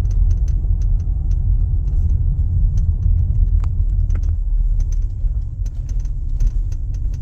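Irregular sharp clicks and rattles from a Mazda CX-5's windshield, several a second at times, over the low rumble of the moving car. The windshield is shifting against its plastic alignment pins, which the owner puts down to play opened up by heat.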